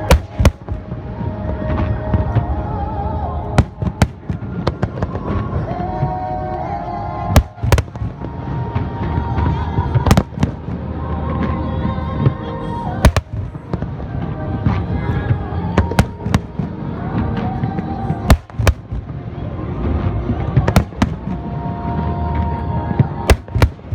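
Aerial fireworks shells bursting in sharp bangs, often in quick pairs, every few seconds over a dense low rumble, with music playing for the choreographed display.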